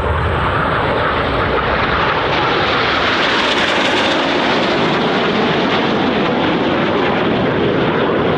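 Aermacchi MB-339 jets with Viper turbojet engines flying past, a loud continuous jet roar. It grows sharpest about four seconds in as the jets pass closest, then eases.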